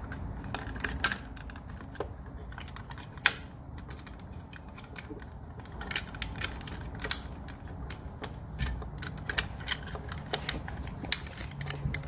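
Irregular small clicks and taps of hard plastic being handled and pushed into place over a mini fridge compressor's relay terminals, with one sharper click about three seconds in.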